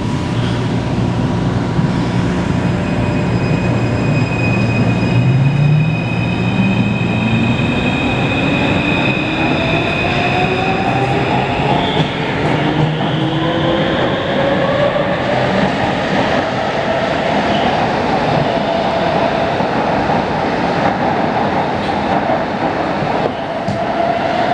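Taipei Metro C341 refurbished train's VVVF inverter and traction motors whining as the train accelerates away, several tones climbing steadily in pitch, over wheel and track rumble. A set of high steady tones sounds over the first half and then fades. The rider takes the inverter to be making an abnormal noise.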